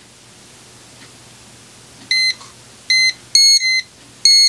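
Klein and Milwaukee non-contact voltage testers beeping at a live wire: a series of short, high-pitched beeps, about five of them at uneven spacing, starting about two seconds in. The beeping signals that the testers detect voltage.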